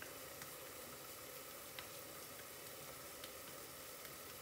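Wet hands patting and pressing minced-meat chapli kebab mixture into patties: a few soft slaps over a faint, steady kitchen hiss.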